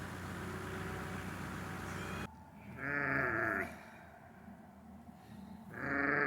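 An engine runs steadily and cuts off abruptly about two seconds in, followed by a sheep bleating twice, each bleat about a second long with a wavering pitch.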